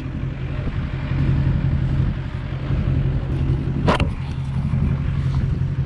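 Truck engine idling steadily with a low hum, and one short sharp click about four seconds in.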